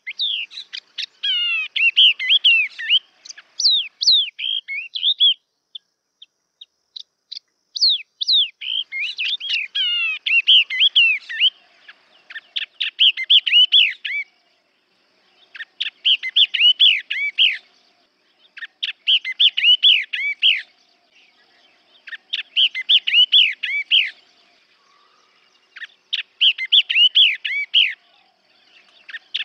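Yellow-eyed babbler singing: phrases of quick, slurred high whistled notes, each about two seconds long, repeated every three seconds or so after short pauses. About six seconds in there is a sparser stretch of a few single notes.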